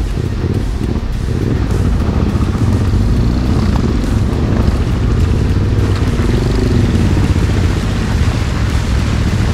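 Off-road motorcycle engine running close up and revving up and down as the bike climbs over rocks.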